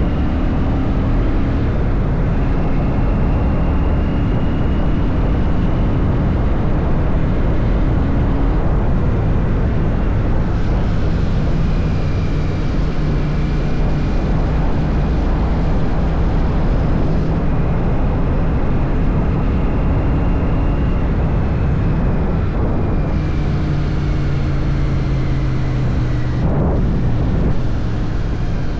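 Royal Enfield Shotgun 650's parallel-twin engine running under way, its steady note shifting pitch several times as engine speed changes, over the rush of air on the move.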